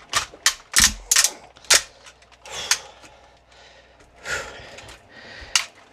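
Hard plastic parts of a large Transformers Cybertron Supreme Class Starscream figure clicking and clacking as a stuck piece is worked loose and folded during transformation. The sharp clicks come irregularly, the loudest in the first two seconds.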